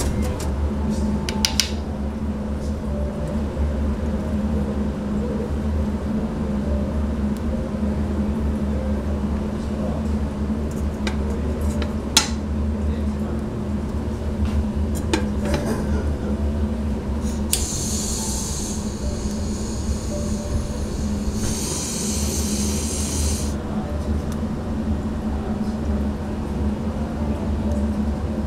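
Restaurant ambience: a steady low hum with a few sharp clinks, and two hisses of about two seconds each a little past the middle.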